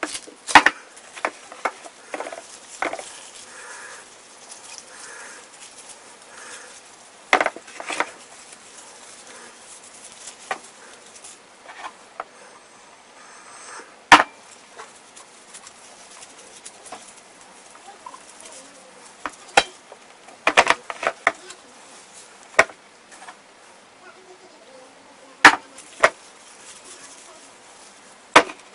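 Gloved hands turning soy-sauce-coated chicken quarters in a plastic tub: irregular short knocks and clicks of the meat and hand against the plastic, some in quick clusters, over a faint steady background.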